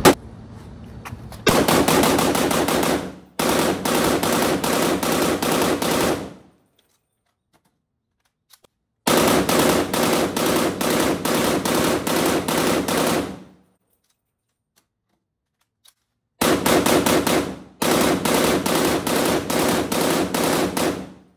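POF CW39 rifle firing on full auto in long bursts, five in all, each a fast even run of shots, with two longer silent pauses between them.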